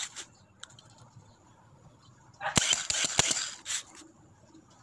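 Toyota Vios NCP93 starter motor bench-tested with a jumper wire. About two and a half seconds in comes a burst of sharp snapping clicks and crackle, lasting just over a second, as the wire is touched to the solenoid terminal.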